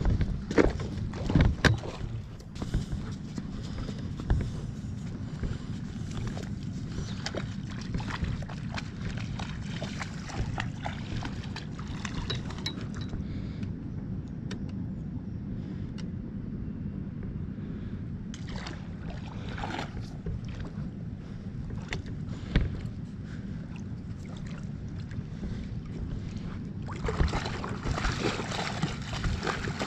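A low steady rumble with scattered light clicks and crunches. In the last few seconds a German Shepherd wades through shallow river water, splashing.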